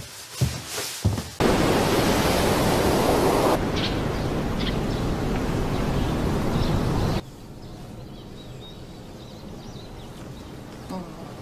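A few short thumps, then a sudden steady rushing noise like surf or rain that lasts about six seconds, with a few faint high chirps in it. It cuts off abruptly to a quiet background hum.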